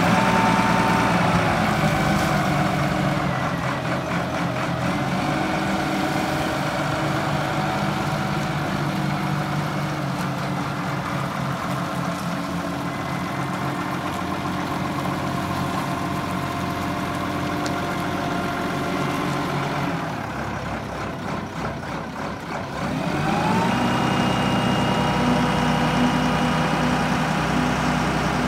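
Kalmar DC 10-600 ten-tonne diesel forklift's engine running steadily as it drives. The revs drop about a second in, ease off around twenty seconds in, then rise again a few seconds later and hold higher.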